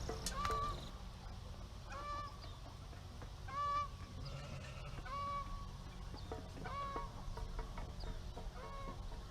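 Farm fowl calling: about six short, flat-pitched calls at an even pace, roughly one every second and a half, over a steady low background rumble.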